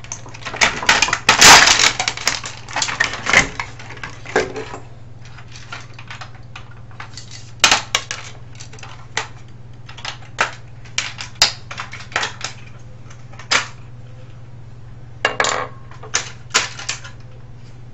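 Plastic housing parts and small metal pieces of a cassette recorder radio clicking and clattering as it is pulled apart by hand. A dense run of rattling knocks in the first few seconds, then scattered single clicks and taps.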